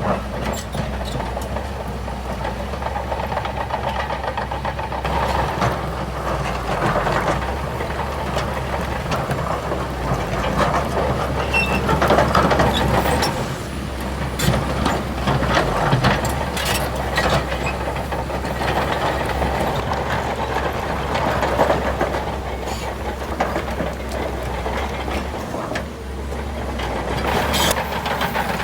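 Bulldozer diesel engine running steadily under work, with grinding noise that swells and fades and scattered clanks.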